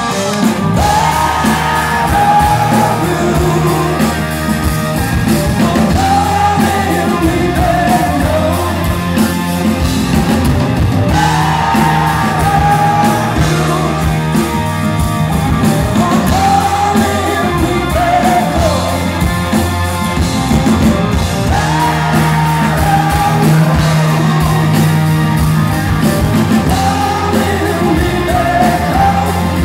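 Rock band playing live: a sung melody in repeated phrases over electric guitar and drums.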